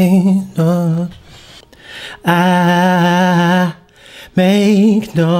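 A man singing a chorus line into a studio microphone: two short sung phrases at the start, a long held note in the middle, and another held phrase near the end, each note wavering slightly in pitch.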